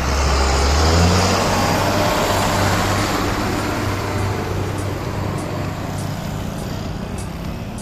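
Heavy diesel vehicle hauling a loaded tipper trailer passing close by: loud engine and road noise, the engine note rising about a second in, then slowly fading as it goes past.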